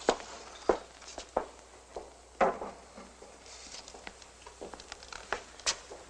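A series of sharp knocks and taps at uneven intervals, about ten in all.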